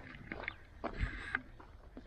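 Footsteps crunching on gravel and dry grass at a walking pace, with a dull low thump about a second in.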